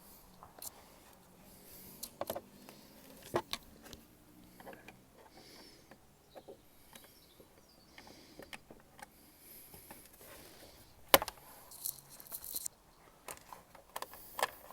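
Scattered clicks and knocks of small metal parts and hand tools being handled while getting loose screws and a dropped nut out of the motorcycle, with the loudest sharp knock about eleven seconds in.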